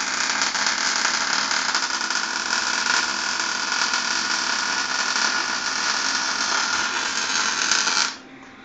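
Electric welding arc burning steadily with a continuous hiss. It cuts off about eight seconds in as the weld stops.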